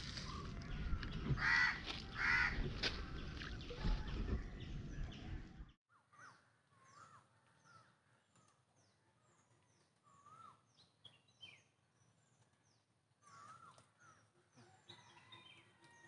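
Crows cawing twice over a steady noisy background, which cuts off about six seconds in; after that it is quiet but for small birds chirping in short falling notes and a few warbling calls.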